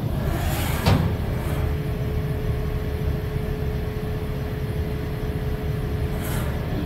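Haas VF-6 vertical machining center moving on its axes. A sharp clunk comes about a second in, then a steady whine holds for several seconds over a low machine hum while the spindle head travels down.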